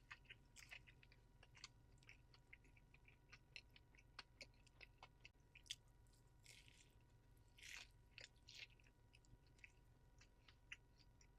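Faint, close-miked chewing of a McDonald's McGriddle breakfast sandwich: many small wet mouth clicks and smacks, with a few short breathy rustles around the middle.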